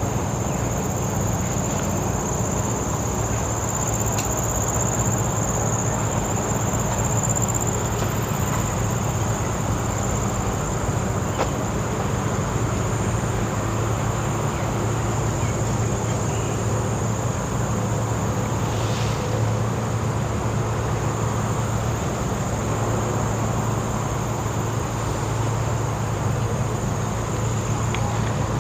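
A steady, high-pitched drone of insects such as cicadas or crickets runs over a constant low rumble, the rumble being the louder of the two.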